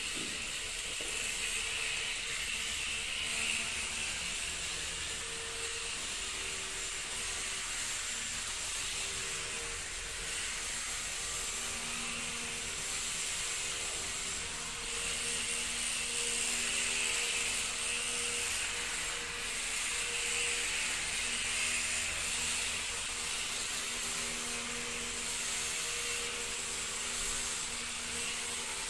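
A high, steady whine from the spinning gyroscope flywheel rotor and small electric motors of a homemade self-balancing two-wheeled vehicle. Lower motor tones shift up and down in pitch every second or two as it drives and turns.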